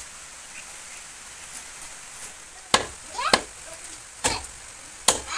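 A heavy knife chopping goat meat and ribs on a wooden chopping block: four sharp chops in the second half, less than a second apart.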